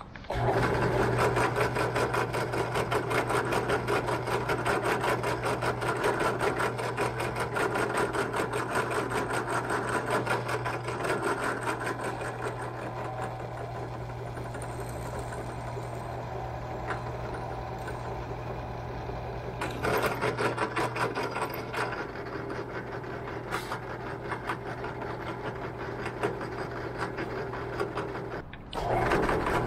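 Benchtop drill press running steadily with a constant motor hum while it drills holes through a metal hinge held on a wooden block. It starts suddenly at the outset, is louder for a moment about two-thirds of the way through, and cuts out briefly near the end.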